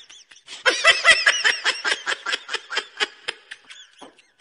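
Laughing sound effect: a high-pitched voice laughing in quick ha-ha pulses, starting under a second in and trailing off near the end.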